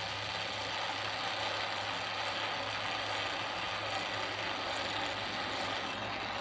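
Soviet R-123M radio's motor-driven preset tuning mechanism running steadily as it turns the antenna-tuning and frequency controls round to a memory channel setting.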